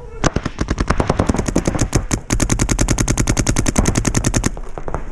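Planet Eclipse Gtek paintball marker firing rapid strings of shots, about a dozen a second, with a short break about two seconds in, stopping shortly before the end.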